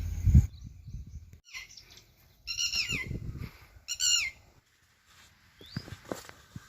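Bird calls: two short bursts of quickly falling, high chirps, about two and a half and four seconds in.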